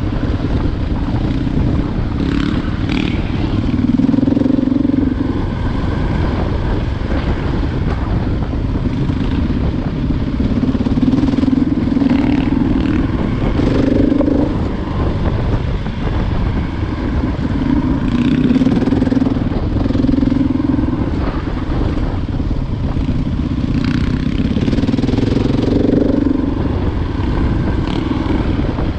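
Single-cylinder four-stroke enduro motorcycle being ridden off-road, its engine note swelling and dropping with the throttle every few seconds, with scattered short clicks and clatter.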